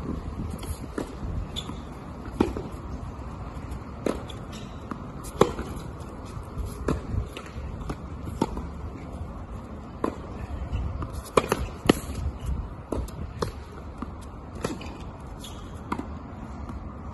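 Tennis rally on a hard court: sharp pops of racket strings striking the ball and the ball bouncing off the court, a knock about every second, some louder and nearer than others.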